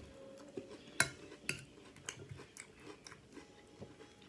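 Cutlery clicking against a dish and close-up chewing of crispy chicken salad. There is a sharp click about a second in, another about half a second later, and lighter ticks throughout.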